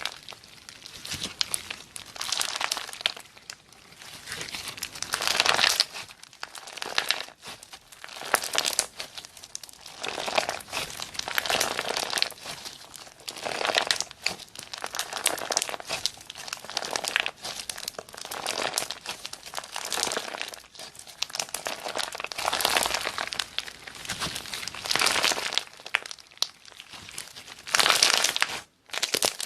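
Slime being squeezed and pressed by hand, crackling and popping in repeated swells every couple of seconds, with a short break near the end.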